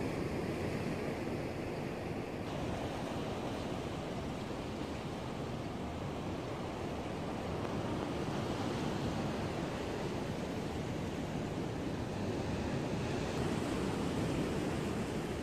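Steady rush of sea water washing against a rock breakwater, with wind on the microphone.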